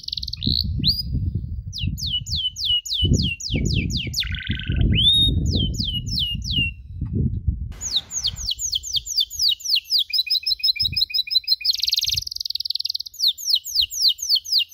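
Domestic canary singing: quick runs of sharp falling chirps ('cuit cuit') and trills, with a buzzy note about four seconds in and a short break near eight seconds. A low rumbling noise runs beneath the song during the first half.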